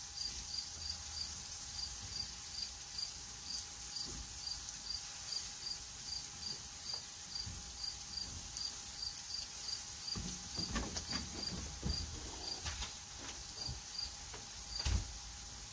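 A cricket chirping steadily, about four short chirps a second, over a high insect hiss. A few knocks and clatters come about ten seconds in, with a sharper knock near the end.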